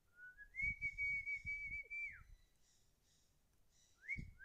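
A clear whistled note that steps up in pitch, holds steady for about a second and a half, then drops away; a shorter rising-and-falling whistle comes near the end. Low puffs of air noise sound under both notes.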